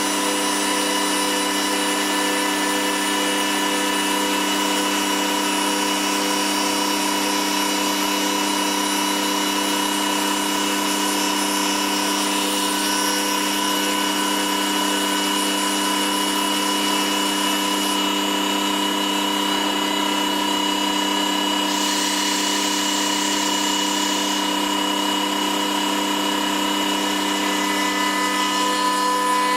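CNC machine spindle driving a woodworking cutter through wood: a steady machine whine made of several held tones over a cutting hiss. A brief patch of brighter, higher hiss comes about two-thirds of the way through.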